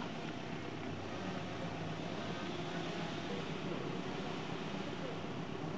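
Steady outdoor background noise with a low hum of distant road traffic, even in level throughout.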